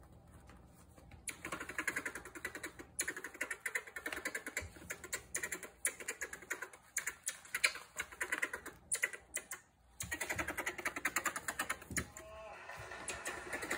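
A common marmoset scratching and scrabbling rapidly at a fabric summer slipper, the slipper scraping and flapping on a wooden floor, in fast dense rattling clicks. It starts about a second in and breaks off briefly near ten seconds in.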